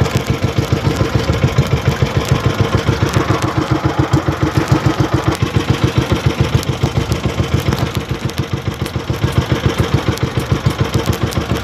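Small engine of an outrigger banca boat running steadily, chugging at about five beats a second.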